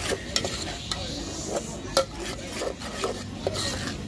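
A metal spoon stirring and scraping a thick sauce around an aluminium saucepan, with irregular clinks of the spoon against the pot; the loudest clink comes about two seconds in.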